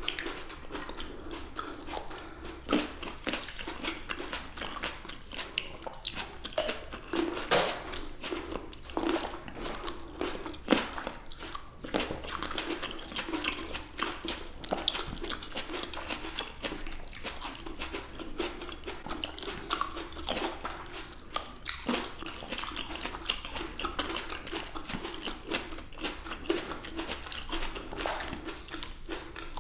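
Close-miked chewing and biting of fresh black grapes, with many short juicy pops and crunches as the grapes are bitten and burst.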